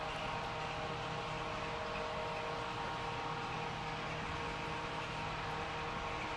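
Steady machinery hum over an even hiss, with several constant tones and no change in level.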